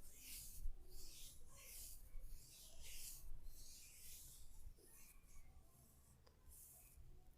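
Hands rubbing in repeated massage strokes, a brisk swishing about two strokes a second, thinning to a few softer strokes after about four and a half seconds.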